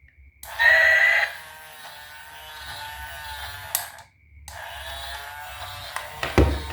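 Battery-operated toy vehicle buzzing with a steady, even drone. It starts loudest about half a second in, cuts out just before four seconds and starts again a moment later. A thump comes near the end.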